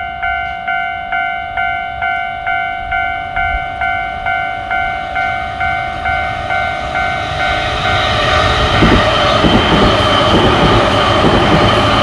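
Japanese railway level-crossing warning bell ringing a steady kan-kan, about two strokes a second. From about eight seconds in, an electric commuter train passes, and its running noise and rhythmic wheel clacks drown out the bell.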